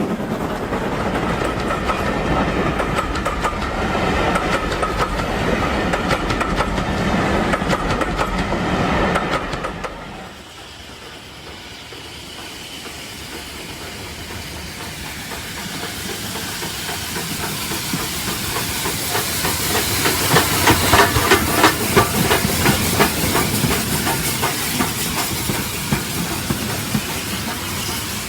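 OO gauge model train running on the layout: a steady running sound that drops away about ten seconds in, then builds again as a train comes closer, with a rapid, regular clicking at its loudest around twenty seconds in.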